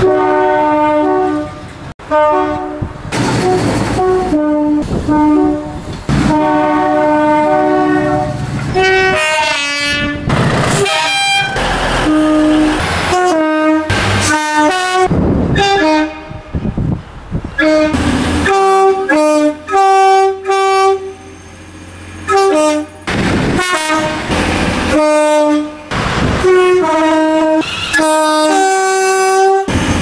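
A run of two-tone train horn blasts from several British diesel trains, among them First TransPennine Express Class 185 units: short steady toots alternating between a higher and a lower note, repeated many times, with sudden cuts between trains and the noise of trains running in the gaps.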